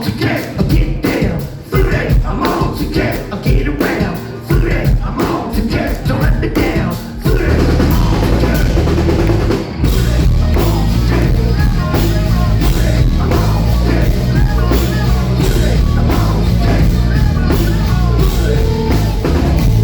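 Live rock band playing an instrumental passage: stop-start hits on drums and band with short gaps, then from about seven seconds in the full band playing continuously with a heavy low end.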